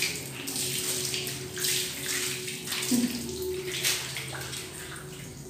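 Water splashing and pouring over a dog during its bath, coming in irregular gushes.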